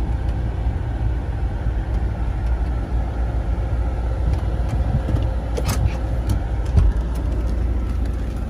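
GMC Yukon Denali's V8 idling, a steady low rumble heard inside the cab. There is a single thump near the end.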